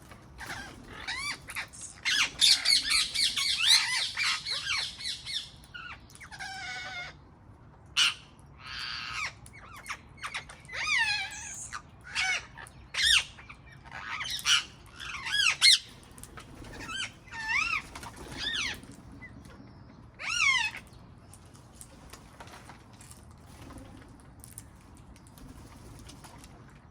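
Wild parrots calling: a dense clamour of overlapping calls for a few seconds, then single swooping calls every second or so, thinning out after about twenty seconds.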